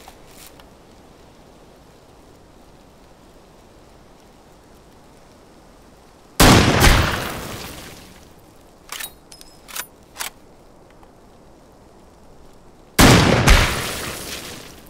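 Two rifle shots about six and a half seconds apart. Each is a sharp crack with a second bang close behind it and a long echoing tail. A few light clicks and ticks come between them.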